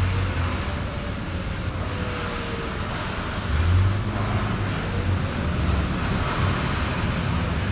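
Street traffic noise led by the low engine rumble of a shuttle bus just ahead, over an even haze of road and wind noise. The rumble swells about three and a half seconds in, and a faint whine rises and falls beneath it.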